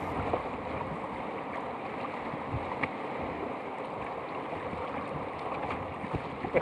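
Whitewater rapids rushing steadily around a canoe, with a few faint clicks over the water noise.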